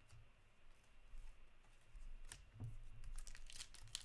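Faint handling of trading cards: cards sliding against each other with scattered light clicks, one sharper click about two seconds in.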